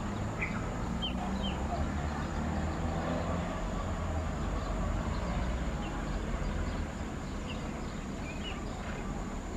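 Tractor engine running steadily with a low drone, a little quieter about seven seconds in, with a few short bird chirps above it.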